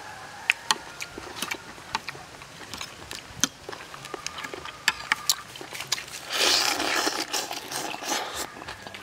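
Metal spoon and fork clicking and scraping against a plate while a person eats, with sharp clinks every second or so. About six seconds in comes a loud stretch of close-up chewing and mouth noise lasting about two seconds.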